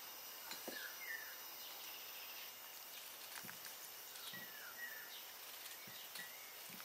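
A small bird chirping faintly: short sliding chirps in little groups a couple of seconds apart, over a steady hiss, with a few soft knocks.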